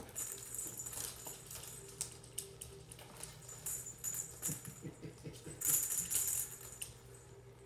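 A cat playing at a sisal scratching post, batting and clawing at the toy on a string at its top: irregular scratching and rattling with light jingling, loudest about six seconds in.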